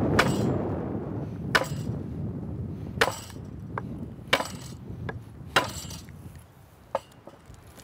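Wooden mallet striking the back of a hatchet set in a log, driving it down to split the log lengthwise: sharp knocks about every second and a half, six loud and two lighter.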